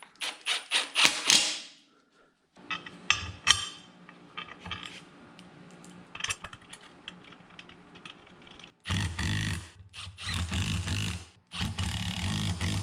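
Metal brackets and bolts clinking as they are set down, then quieter clicking and scraping of parts being fitted. Near the end a handheld power tool runs in several short bursts, driving bolts.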